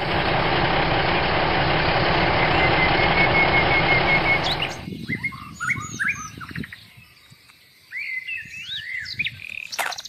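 A loud, steady noise for about the first five seconds, starting and stopping abruptly. Then small birds chirping with short calls that rise and fall.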